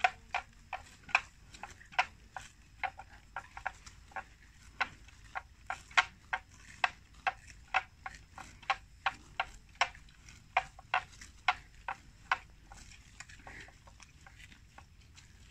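Water buffalo grazing, tearing off mouthfuls of grass: a run of crisp, irregular snapping rips, about two or three a second, thinning out near the end.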